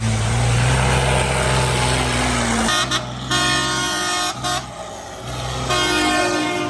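A heavy vehicle's engine running loudly with a low drone. Then, from nearly three seconds in, a horn sounds in several blasts of different pitch.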